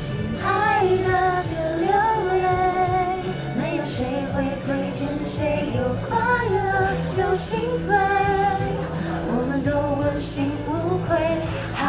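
A woman singing a pop song over instrumental accompaniment, with long held notes that bend in pitch.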